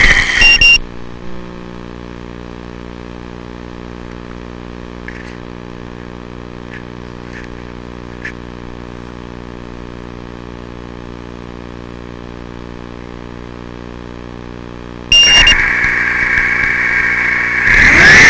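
FPV racing quadcopter's brushless motors: the whine drops away within the first second to a steady low hum with a few faint clicks. About three seconds before the end the sound jumps louder, and the full motor whine returns near the end.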